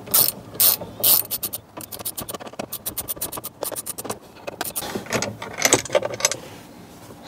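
Hand ratchet wrench clicking as it backs out the bolts holding a Ford Bronco's dash-mounted passenger grab handle: a few spaced clicks, then fast runs of clicking, thinning out near the end as the loosened handle is lifted off.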